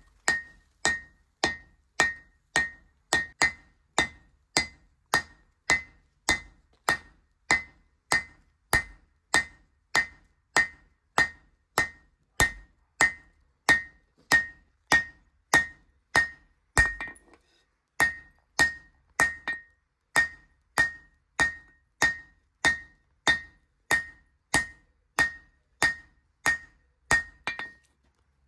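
Forging hammer striking steel from spade drill bits on an anvil in a steady rhythm of about two blows a second, each blow with a bright ring. There is a short pause a little past halfway.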